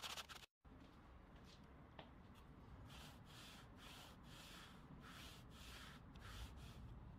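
Faint rubbing or scratching strokes repeated about two to three times a second, over low room noise.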